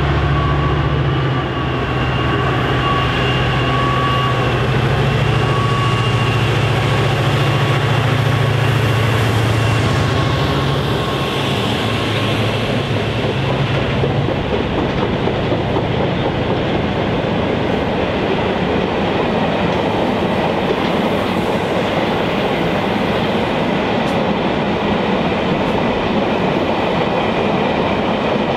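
A C class diesel-electric locomotive, a turbocharged EMD V16, passes with a deep engine drone and a steady high whine. About halfway through these give way to the rumble and clatter of a long rake of ballast hopper wagons rolling by.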